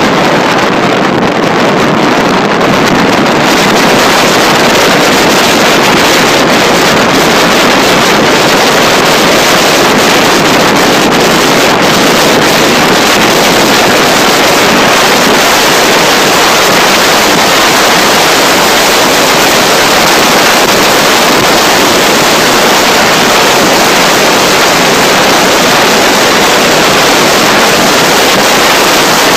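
Wind rushing over the microphone of a camera mounted on a road bike descending fast: a loud, steady roar of wind noise that goes on without a break.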